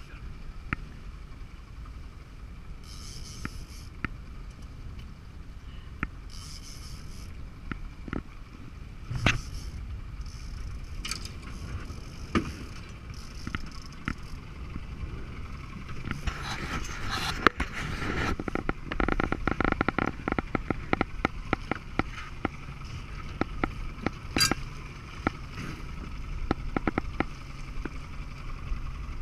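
Fishing reel clicking and ratcheting as line is wound in against a hooked striped bass. The clicks come thick and fast through the second half, over a steady low background noise.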